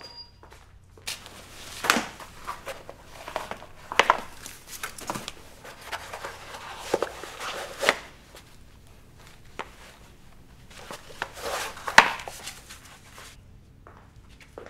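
Irregular rustling and light knocks of shoes being handled and canvas sneakers being pulled on and laced, with a few footsteps. The sounds stop about a second and a half before the end.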